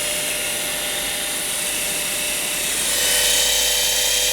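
Parkside wood router's motor running free with no cut, at its lowest speed setting 1: a steady whine with several held tones that grows a little louder and higher about three seconds in.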